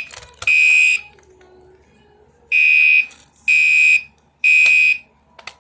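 Fire alarm horn sounding the temporal-three evacuation pattern with loud, high-pitched half-second beeps. One beep ends a group, then after a pause of about a second and a half comes a full group of three, a second apart. It stops after the last beep.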